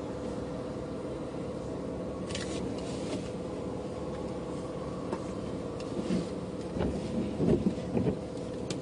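Car engine running in a low steady hum, heard from inside the cabin. A few sharp clicks and, near the end, several louder muffled bumps from the camera being handled.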